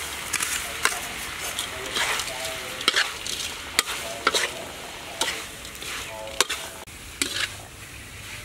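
A spatula stirring and scraping pig liver and crispy garlic in a hot wok as it sizzles, with irregular clacks and scrapes against the pan.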